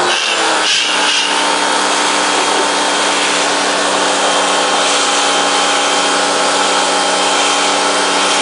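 Humbee WE-H1900 electric pressure washer running, its motor humming steadily under the hiss of the water jet spraying rubber floor mats. It is a little uneven in the first second, with air still in the line being bled out, then holds steady.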